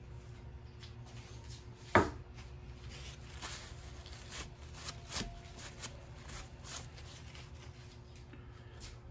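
A single sharp knock about two seconds in. After it come soft rustling and light rubbing as a paper towel wipes the freshly tapped end of a steel rod clamped in a bench vise.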